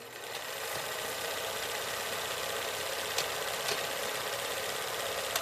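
Steady mechanical whirring with a light rattle, and a few faint clicks in the second half.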